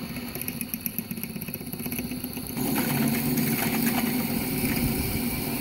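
Sieg 7x14 mini lathe running with a twist drill in the tailstock cutting into the centre of an HTD pulley, pecking out its bore. About two and a half seconds in, the cutting gets louder and rougher as the drill bites.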